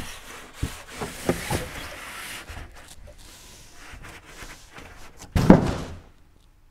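Large cardboard drone box being lifted off its foam packing base: cardboard scraping and rubbing with a few knocks, then a loud cardboard thump and rustle about five and a half seconds in as the empty box is put down.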